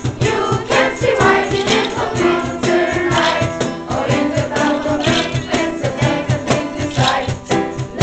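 A group of young voices singing a song together over a steady beat with shaken percussion like a tambourine.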